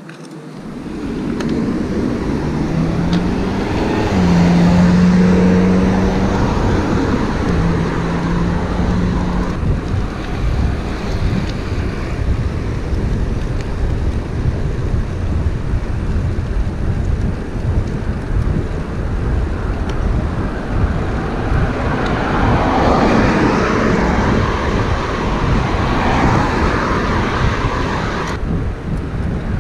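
Wind rushing over the microphone of a moving bicycle, with road traffic alongside. In the first ten seconds a vehicle engine hum rises in pitch and then holds. Past the middle, tyre noise from passing cars swells and fades.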